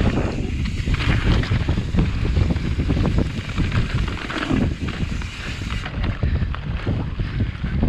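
Wind rushing over the microphone of a Kona Process 153 full-suspension mountain bike descending a dirt trail, with constant rattling and knocking from the bike and tyres over rough ground.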